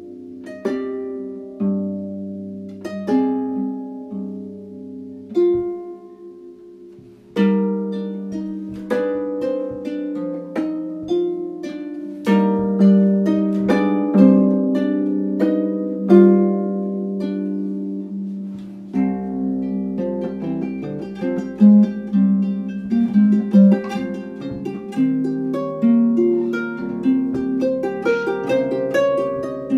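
Erard Gothic harp being played: plucked notes ringing and dying away. It opens with spaced-out chords, grows fuller and louder about seven seconds in, and moves to quicker runs of notes over low bass notes about two-thirds of the way through.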